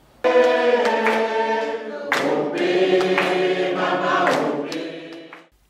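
A mixed group of men and women singing a hymn together at Mass, in lively sustained chorus. They move to lower notes about two seconds in, and the singing fades out near the end.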